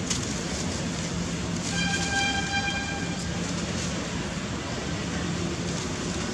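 Steady background traffic noise with a vehicle horn sounding once, about two seconds in: a single flat, steady tone lasting about a second and a half.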